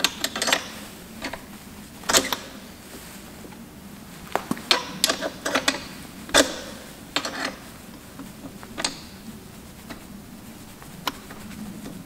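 A thin metal tool clicking, tapping and scraping inside the outlet of a stock motorcycle silencer as the dB killer is worked loose. The sharp clicks come irregularly, with quiet gaps of a second or two between them.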